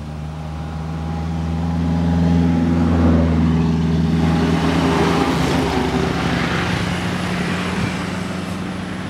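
A truck's engine and tyres on the road as it approaches and passes close by. The sound builds to a peak about three seconds in, then fades as the truck drives away.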